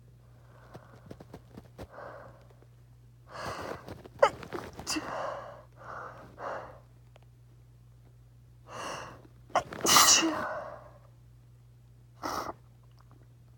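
A run of sneezes. Faint breaths come first, then loud, sudden sneezes, the two loudest about four and ten seconds in, with shorter breathy bursts between them and one brief sneeze near the end.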